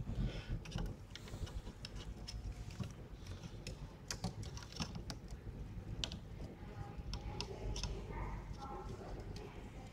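Irregular small plastic clicks and taps as the parts of an HG Cathedral plastic model kit are handled and posed by hand.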